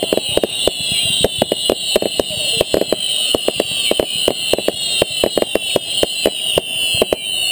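Fireworks going off: several high whistles that slowly fall in pitch, over a rapid, irregular crackle of sharp small bangs.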